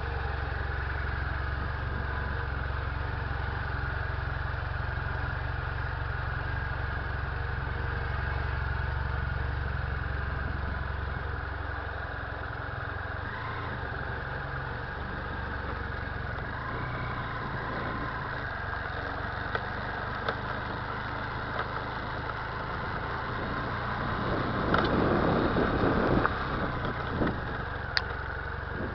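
BMW F 800 GS parallel-twin engine idling steadily, with a few sharp knocks and a louder stretch of clanking a few seconds before the end. The clanking comes from the rear end, and the dealer puts it down to normal drive-chain noise, which the owner doubts.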